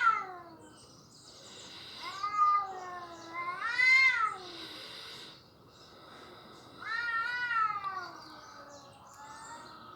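Domestic cats caterwauling in a fight: long, wavering yowls that rise and fall in pitch. One trails off at the start, two follow one after another about two seconds in, and another comes around seven seconds in.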